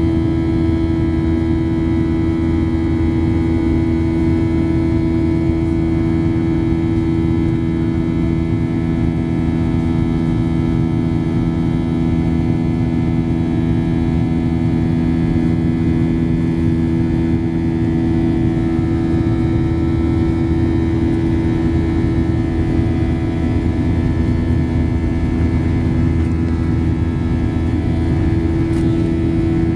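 Boeing 737-700's CFM56-7B turbofan engines running steadily at climb power, heard inside the passenger cabin beside the wing: an even roar with a low, steady hum of several held tones.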